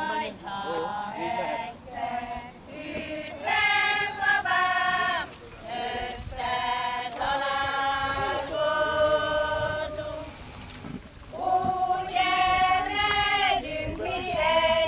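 A women's folk group singing a folk song in unison without accompaniment, in long held phrases, with a short breath pause about ten seconds in.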